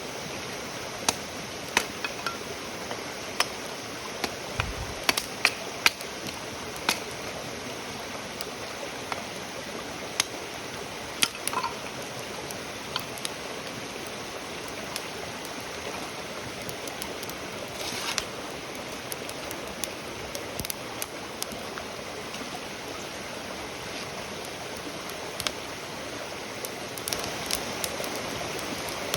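Wood campfire burning: a steady hiss with sharp crackles and pops scattered irregularly through it.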